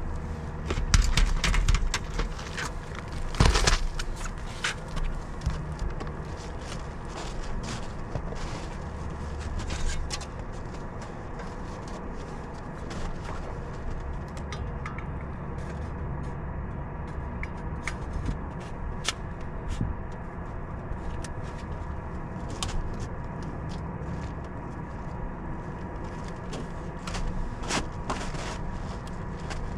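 Scattered knocks, clicks and scrapes of tools and counter-flashing pieces being handled on a tarp, the loudest knocks in the first few seconds, over a steady low rumble and a faint constant hum.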